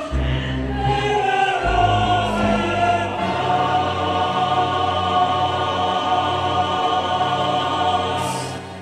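Intro music with a choir singing long held notes over low sustained tones; it fades and stops just before the end.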